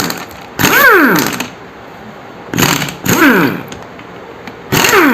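Power tool, an impact wrench, run in short trigger bursts, about four times, each spin dropping sharply in pitch as it winds down: it is taking out the bolts that hold the cooling fan on a Suzuki Access 125 engine.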